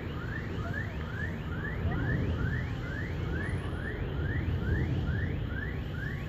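A short high chirp rising in pitch, repeating evenly about two to three times a second, over a low, uneven rumbling noise.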